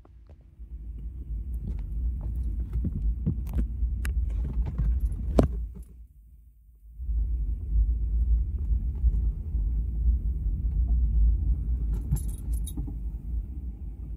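Low rumble inside a car's cabin as it moves and pulls up, with scattered small clicks and jingling ticks. The rumble drops away for about a second near the middle, then comes back.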